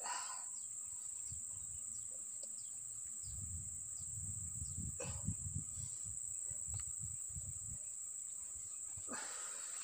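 Steady high-pitched insect drone, with low rumbling thuds through the middle and brief rustling near the start and end.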